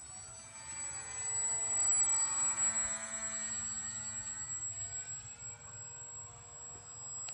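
Radio-controlled model Tiger Moth biplane flying past: the hum of its motor and propeller grows to its loudest about two to three seconds in, drops in pitch as it passes, then fades.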